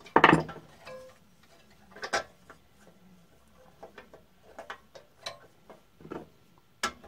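Scroll saw's tabletop being tilted by hand: a sharp knock just after the start, then scattered light clicks and taps as the table shifts on its tilt mount.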